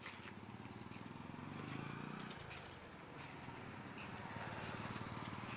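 Street traffic noise with a vehicle engine running close by, loudest about two seconds in.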